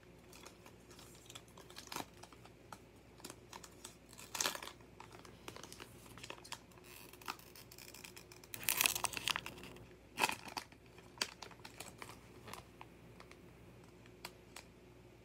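The wrapper of a sealed trading-card pack being torn open and crinkled by hand. It comes in several short bursts of tearing and crinkling with small clicks between, the longest about nine seconds in.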